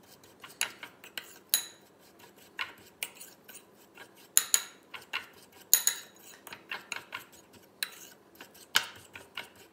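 Metal spoon stirring brown sugar and cinnamon in a ceramic bowl, clinking against the bowl's side at irregular intervals about once a second, with soft scraping between the clinks.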